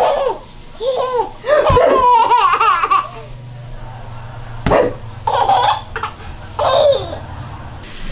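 Baby laughing and giggling in repeated bursts, a long run of giggles at first, then shorter laughs. There are a couple of soft knocks in between.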